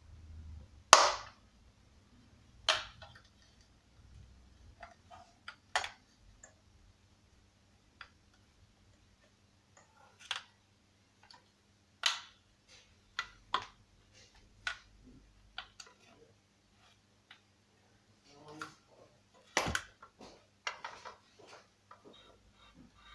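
Irregular sharp clicks and knocks of tools and chainsaw engine parts being handled on a workbench, the loudest knock about a second in.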